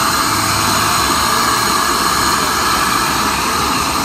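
Hand-held hair dryer running steadily, blowing air onto a man's hair as it is dried.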